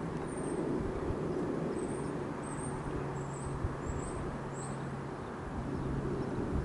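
Steady outdoor background rumble with a low, even hum, like distant traffic or engine noise. Several short, high chirps come through in the first half.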